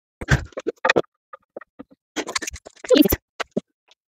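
The legs of an elevated dog bed being fitted into their sockets on the frame: a run of short knocks, clicks and scraping, in two clusters, one just after the start and one around three seconds in, with single ticks between.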